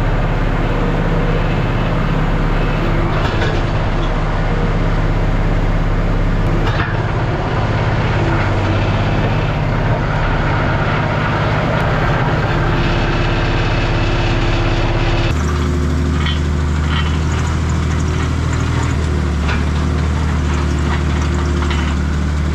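Skid steer engine running steadily under the operator's control, its note changing abruptly about 15 seconds in as the revs shift.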